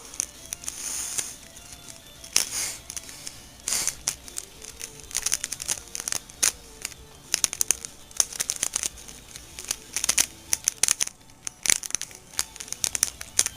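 Adhesive tape being pulled off the roll, torn and wrapped around a homemade airsoft grenade: irregular crinkling and crackling handling noise with several longer ripping sounds.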